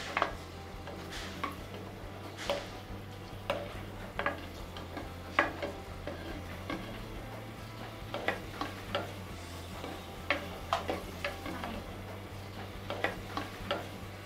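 A spatula stirring onions frying in coconut oil in a deep pan: irregular scraping clicks of the spatula on the pan, about one or two a second, over a faint sizzle and a low steady hum.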